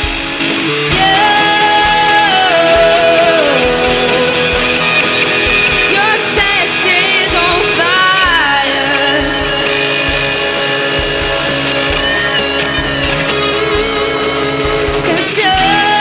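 Live rock band with electric guitars, bass and drums playing on a steady beat, while a singer holds long notes that slide downward.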